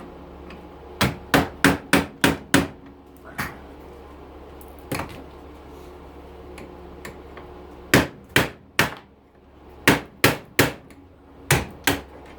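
Hammer blows knocking a dishwasher door loose from its plastic hinge clips: a quick run of about six strikes, two single blows, then groups of three, three and two strikes.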